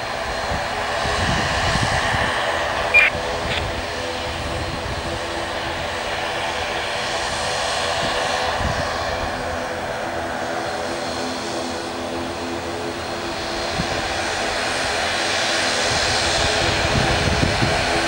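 ATR 72-500's twin Pratt & Whitney PW127 turboprop engines running, a steady propeller drone of several held tones that grows louder toward the end. A brief sharp click about three seconds in.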